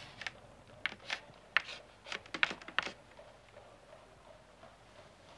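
Quick run of short, sharp taps and paper rustles from handling paper at a desk, about eight in the first three seconds, then faint room tone.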